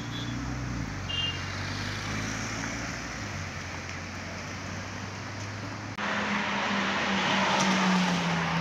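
Road traffic with a car engine running steadily; about six seconds in the sound changes suddenly to a louder stretch of traffic noise with an engine hum that falls slightly in pitch.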